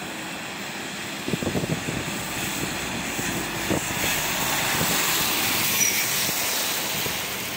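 A heavy truck drives past close by on a wet road: engine and tyre-spray hiss swell to a peak about five to six seconds in, then ease off.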